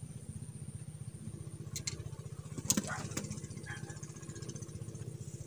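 A small engine running steadily with a fast, even low putter, with a few short sharp clicks about halfway through.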